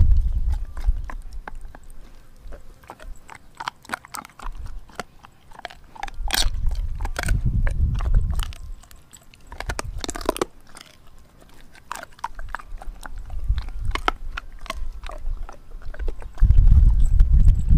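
A Doberman chewing and crunching on a raw frozen pig's foot: irregular crunching clicks of teeth on frozen meat and bone. A low rumble comes and goes, loudest near the end.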